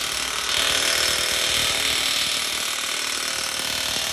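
Makita 40V cordless 3/4-inch impact wrench hammering continuously as it tightens a nut on a bolted steel beam connection, the bolt held against it with a spud wrench. The rapid impacts run steadily and without a pause.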